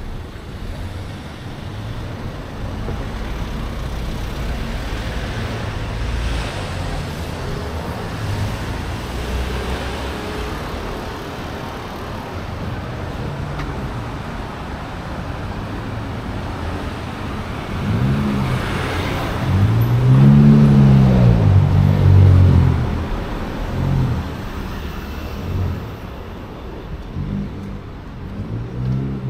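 Road traffic with cars running by. About eighteen seconds in, a nearby vehicle's engine rises and falls in pitch several times; this is the loudest part. More engine sound follows near the end.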